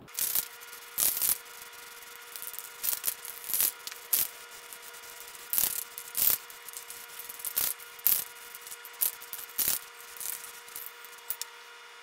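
Aerosol spray-paint can spraying in many short hissing bursts, roughly one or two a second.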